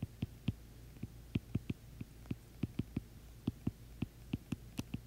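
Stylus tapping on a tablet screen during handwriting: irregular sharp clicks, about four a second, over a faint steady low hum.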